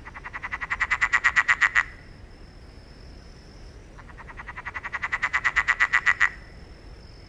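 A frog calling twice: each call is a rapid train of about ten pulses a second that grows louder over about two seconds. The second call starts about four seconds in.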